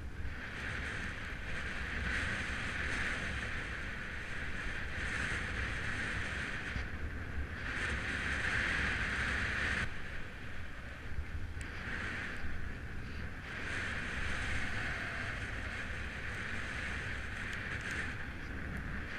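Wind rushing over the microphone of a camera on a road bike riding fast on wet tarmac: a steady low rumble with a higher hiss that swells and briefly drops away several times.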